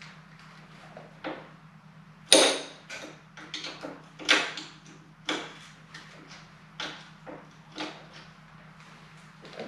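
Hand tools clinking and knocking against metal in irregular strokes, the loudest about two seconds in, over a steady low hum.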